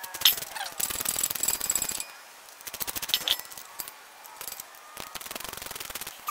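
Ratchet wrench clicking in three quick runs while bolts on the motorcycle engine's water pump cover are being undone.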